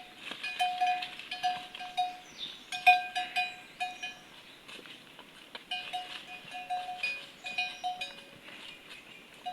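Bells worn by a flock of sheep clinking irregularly as the animals move, at least two bells of slightly different pitch, with a short lull about halfway through.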